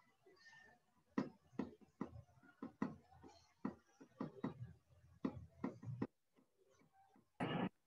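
A dozen or so irregular sharp clicks and taps over about five seconds, then a short burst of noise near the end.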